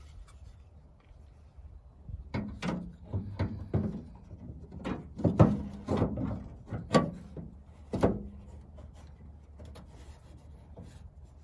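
Handling and fitting a plastic tailgate handle and its bolts: a string of irregular knocks and clicks, mostly between about two and eight seconds in.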